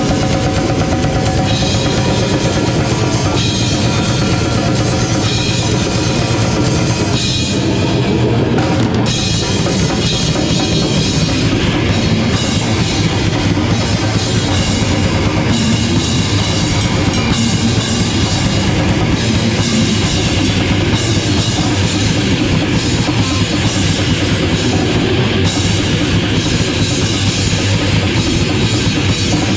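A live rock band playing loud, dense music, with a full drum kit driving it and the bass drum prominent.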